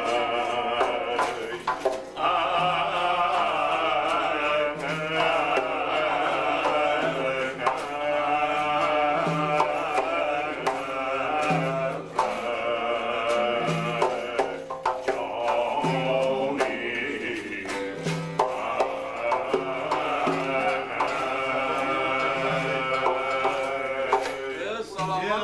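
Live Central Asian folk music: long-necked plucked lutes with a large frame drum beating a steady pulse, and a man singing over them.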